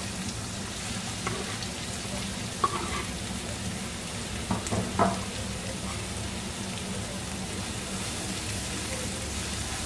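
Finely chopped onions frying in hot oil in a kadai, a steady sizzle. A few light knocks near the middle as they are stirred.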